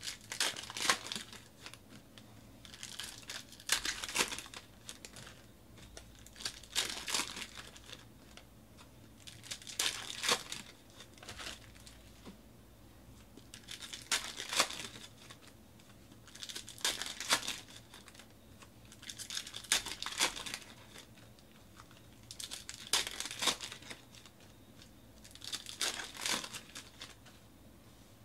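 Plastic trading-card pack wrappers being crinkled and torn open by hand, in short crackly bursts about every three seconds.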